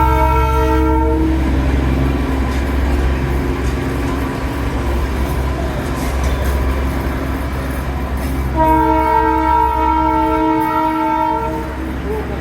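Darjeeling Himalayan Railway toy train's locomotive sounding its horn twice: one blast that ends about a second in, then another about three seconds long near the end. A steady low rumble runs underneath.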